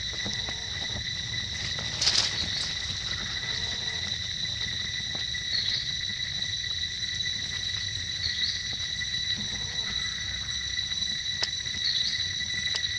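Forest insects droning steadily with a high, even buzz, with a short chirp coming back about every three seconds.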